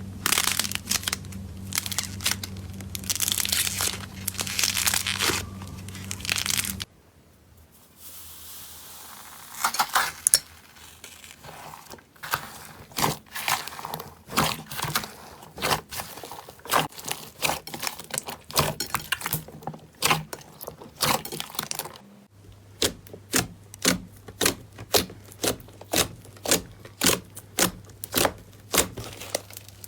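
Slime being squeezed, stretched and poked, giving crackling, crinkling and popping sounds. The first part is a dense crackle. After a cut the crackle thins to scattered clicks. Near the end, after another cut, come regular sharp pops about twice a second, as the slime is pressed over and over.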